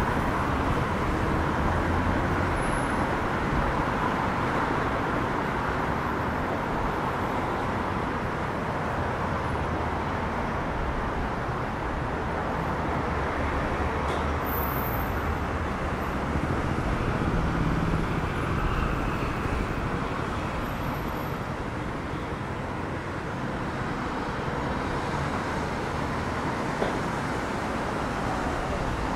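Steady road traffic on a city street: a continuous noise of passing vehicles, with no single event standing out.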